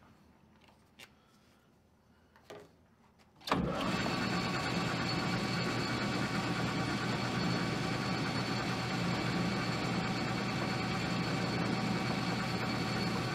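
A few faint clicks, then about three and a half seconds in a metal lathe is switched on and runs steadily with a constant hum, the four-jaw chuck spinning while a small boring bar takes a light cut inside the part.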